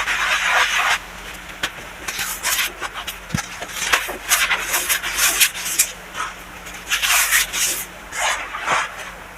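Baking soda being crushed and scraped: a steady soft hiss for about the first second, then a run of short, irregular scraping crunches.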